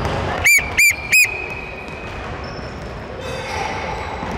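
Three short, loud blasts on a sports whistle about a third of a second apart, each rising and falling in pitch, the last one ringing on for about a second.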